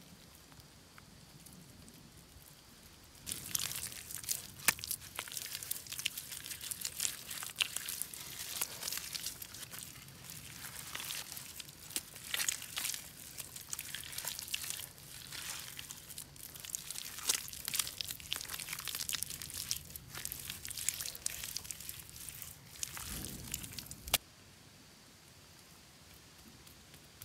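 Bare hands pressing, squeezing and patting wet mud into the wall of a mud stove: dense, irregular wet squelching and crackling. It starts about three seconds in and stops suddenly near the end.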